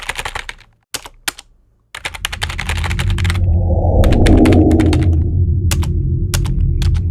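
Keyboard-typing sound effect: quick runs of key clicks in the first few seconds, then scattered single clicks. A deep rumbling drone swells in about two seconds in and carries on under the clicks.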